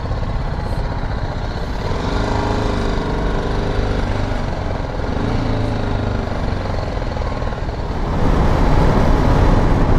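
Motorcycle engine running with surrounding traffic noise, heard from the rider's seat while filtering through slow traffic. About eight seconds in the noise grows louder as the bike picks up speed on open road.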